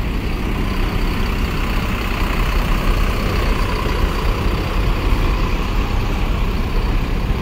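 Mercedes-Benz OH 1626 bus's rear-mounted diesel engine idling, a steady low rumble.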